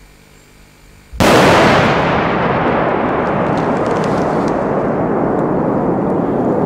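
A large firework charge going off: a sudden loud blast about a second in, followed by a loud, sustained rushing noise that does not die away, with a few faint crackles in it.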